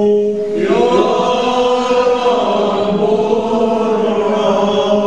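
Liturgical chanting by several voices, in long held notes over a steady low note; a fuller group of voices comes in about half a second in.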